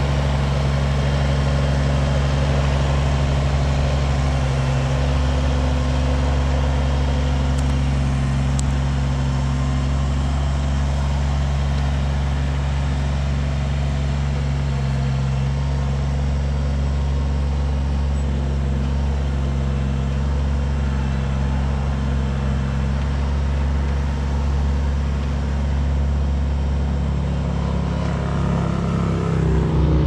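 Kubota BX23S compact tractor's three-cylinder diesel engine running steadily with a low, even hum, as the machine works the backhoe.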